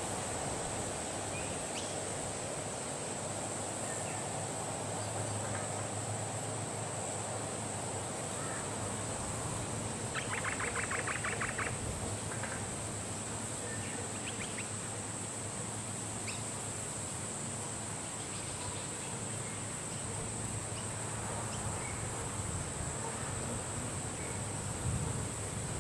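Steady wind noise with a constant high-pitched hiss, over which birds give scattered short calls. About ten seconds in, one bird gives a quick rattling trill of about ten notes a second, lasting over a second.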